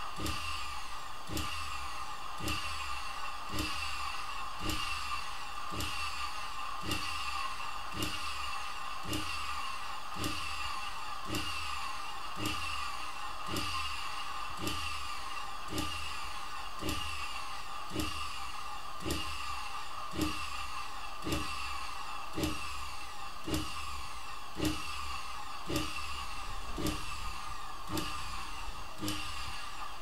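Vacuum cleaner motor driving a generator, running steadily with a whine and a regular knock about every 0.7 seconds.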